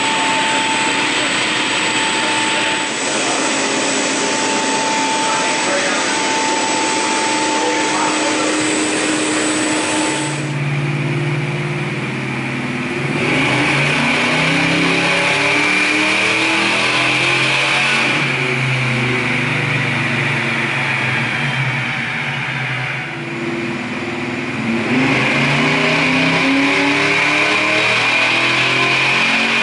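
A steady rushing hiss with a high whine at first. Then, from about ten seconds in, the 1968 Ford Mustang fastback's engine revs under load on a chassis dynamometer, rising in pitch twice with a drop back in between.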